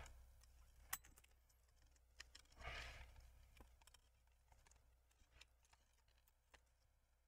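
Near silence, broken by a few faint small clicks, the clearest about a second in, and a brief soft rustle near three seconds.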